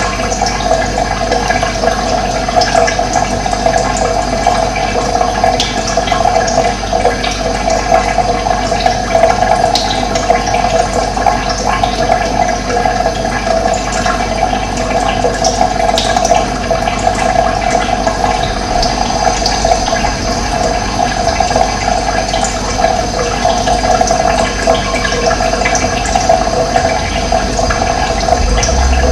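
Running water flowing steadily with a continuous rush, with occasional short bird chirps above it.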